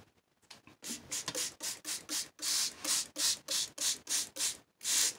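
Spray bottle squirting coffee onto a sheet of paper: about fifteen quick squirts, roughly four a second, starting about a second in.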